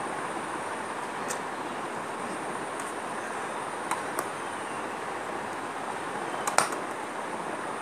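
Steady background noise with a few short sharp clicks; the loudest click comes about six and a half seconds in.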